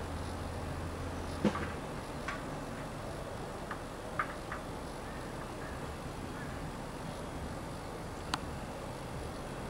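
Quail hen and chicks: a few brief chirps and sharp ticks, the loudest about one and a half seconds in, over a steady background hiss.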